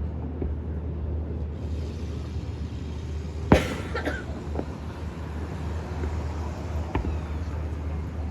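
Fireworks shells bursting: one sharp bang about three and a half seconds in, with a few fainter pops later, over a steady low hum.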